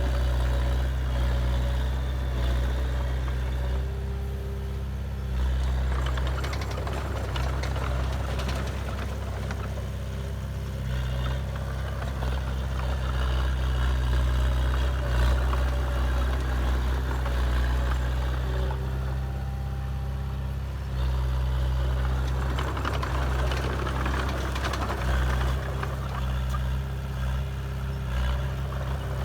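Heavy diesel engine of earthmoving machinery running, its low drone shifting in level several times as the load changes, with patches of rattling and clatter.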